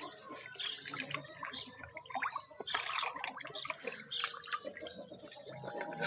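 Fish splashing at the surface of a pond as they snatch food thrown to them: many small irregular splashes and drips.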